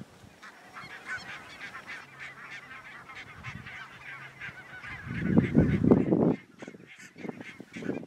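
A flock of barnacle geese calling: a steady chatter of many short, overlapping yaps and honks. About five seconds in, a louder low rumbling noise rises over the calls for just over a second, then stops suddenly.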